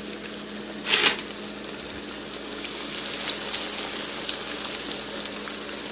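Breaded pork chop sizzling in hot oil in a frying pan. A short loud burst of sizzle comes about a second in, then the sizzle swells and holds.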